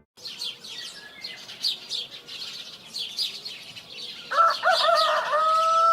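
Small birds chirping in quick repeated tweets, then about four seconds in a rooster crows, one long call held steady to the end: a morning sound cue.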